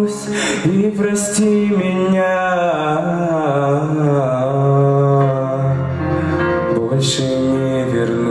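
Male voice singing a slow ballad over a backing track, drawing out long notes that bend and waver in pitch, with a few sharp 's' sounds.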